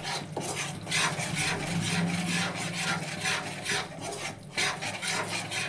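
A ladle scraping and stirring wheat flour roasting in ghee in a metal kadhai, in repeated rasping strokes about two a second. The flour is being kept moving so it doesn't stick to the bottom while it browns.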